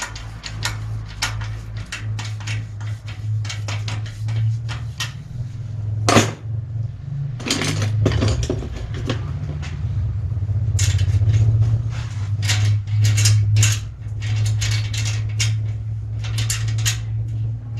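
Irregular metallic clicks and clatter of hand tools working at a bicycle's rear hub axle, with two louder knocks about six and eight seconds in, over a steady low hum.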